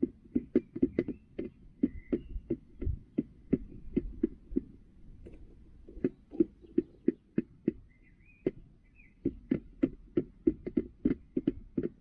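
Hen pecking at a plastic feeder tray close by: sharp, irregular beak taps, a few a second, thinning out briefly about five seconds in and again around eight seconds.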